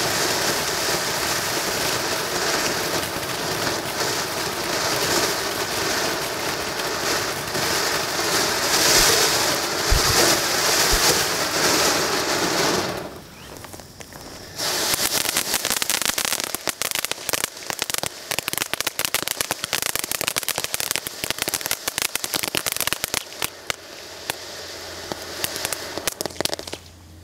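Two ground firework fountains. The first gives a steady, loud hissing spray of sparks for about 13 seconds and then cuts out. After a short lull a second one starts up with dense, rapid crackling that continues almost to the end.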